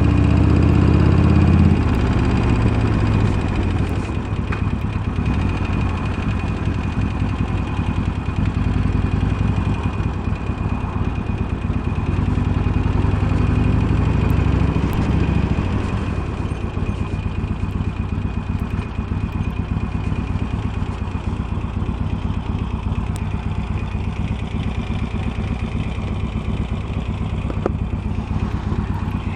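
Harley-Davidson Iron's air-cooled V-twin, bored out to 1200, running near idle with the intermittent 'ting ting knocky' sound its owner noticed. The engine is louder for the first couple of seconds and again around the middle.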